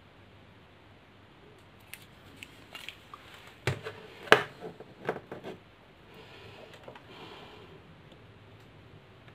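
Hands handling a small plastic cooling fan and its wires on a desk. A cluster of short clicks and knocks comes in the middle, the loudest a little over four seconds in.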